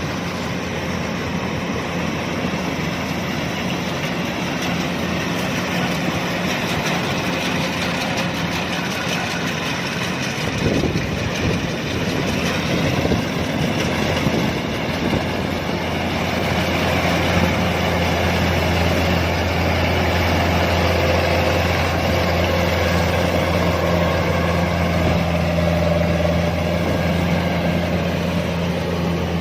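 Kubota DC-105X combine harvester running steadily while harvesting rice: a diesel engine drone under the rushing noise of the cutting and threshing machinery. The low engine hum grows stronger a little past halfway through.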